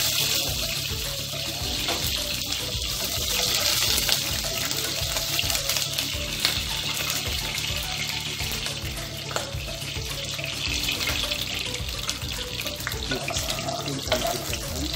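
Chopped garlic frying in hot oil in a saucepan, a steady sizzle, with music playing underneath.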